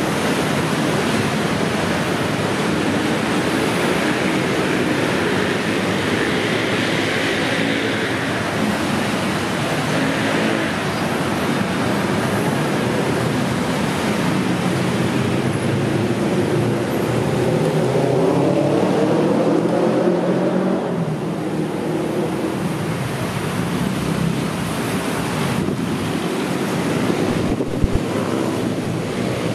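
Steady road-traffic noise of a busy city street, cars and motorbikes running together in one constant hum. Past the middle, one vehicle's engine note climbs in pitch and then fades back into the traffic.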